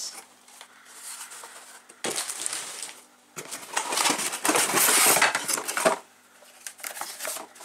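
Cardboard packaging scraping and rustling as boxed vacuum attachments are pulled out of a cardboard carton. It comes in two bouts: a short one about two seconds in, then a longer, louder one.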